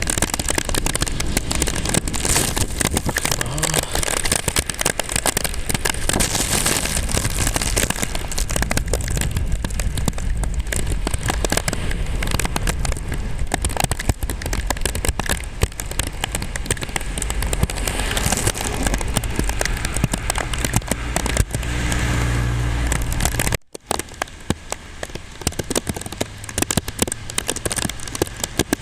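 Heavy typhoon rain pattering hard, with wind buffeting the microphone in a low rumble. It cuts off abruptly near the end, and lighter rain patter follows.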